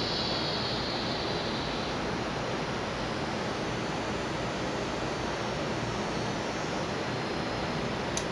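Steady, even background hiss and rumble, with a brief click near the end.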